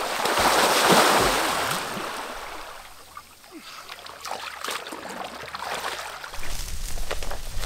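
A person plunging into a lake, a big splash and churning water that is loudest about a second in and dies away over the next two seconds, followed by quieter sloshing and dripping as he surfaces and wades in the shallows.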